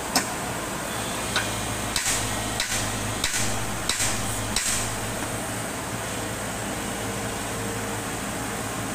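JCB 140 tracked excavator's diesel engine running steadily while the boom and bucket work, with a string of sharp knocks and clanks in the first five seconds or so.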